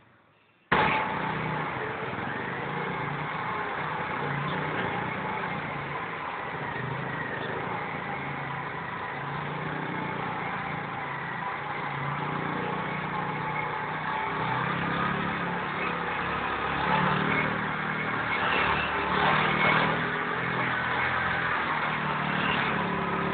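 Small commuter motorcycle's engine running hard and revving up and down as the bike spins donuts on concrete, its rear tyre scrubbing round. It cuts in abruptly about a second in, after a moment of near silence, and grows a little louder and rougher near the end.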